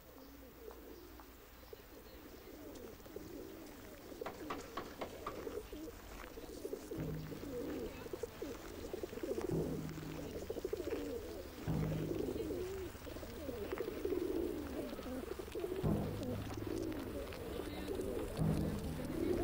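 A dense layer of pigeon-like cooing in a soundtrack, with low pulses swelling in every two to four seconds as the level builds.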